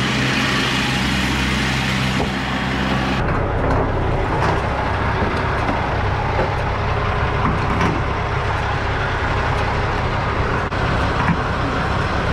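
Steady rumble and rushing noise of a semi-truck being fuelled with diesel at a truck-stop pump. A steady low hum and the high rushing cut off together about three seconds in, and the rumble carries on.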